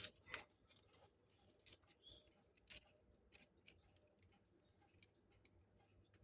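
Near silence broken by faint, scattered small clicks and taps as the pendulum is hooked onto a battery-powered Engstler mini cuckoo clock.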